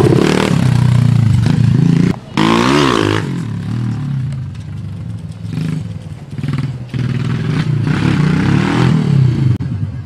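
Minibike's 107cc Honda-clone single-cylinder four-stroke engine running loud as the bike is ridden. The sound drops out for a moment about two seconds in, then the engine revs up sharply, and afterwards it runs lower with short revs rising and falling.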